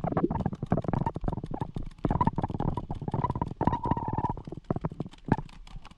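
A paintball player's sprint picked up close on a worn camera: a rapid, uneven run of knocks and rustles over a low rumble, quieter near the end.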